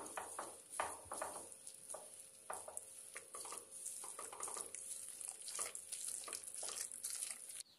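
A hand squishing and kneading thick, coarse-ground moong dal batter with chopped onion and rice flour in a stainless steel bowl: soft wet squelches and rustles in an uneven rhythm. It stops abruptly just before the end.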